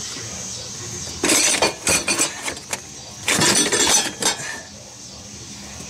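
Two bursts of clattering and scraping, each about a second long and a second apart: hard metal parts knocking and clinking against each other.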